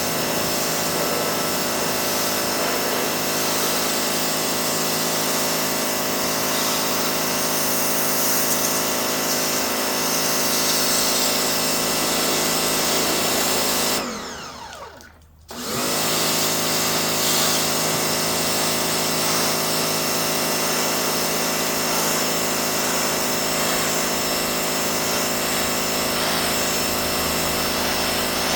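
Pressure washer running steadily with a spray hiss. About halfway through it cuts out and winds down for a second or so, then starts up again.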